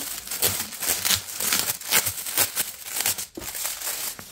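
Plastic packaging crinkling and rustling in a dense, irregular run of crackles as it is handled and opened.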